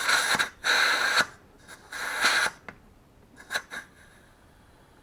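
Air hissing into a wheel's inner tube in three short bursts during inflation, followed by a few light clicks.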